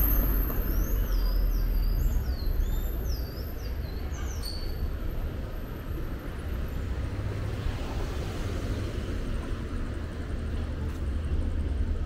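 City street ambience: a steady low rumble of road traffic. Over the first four seconds or so a bird sings a quick run of repeated chirping notes, and a thin high whine sounds through the first half.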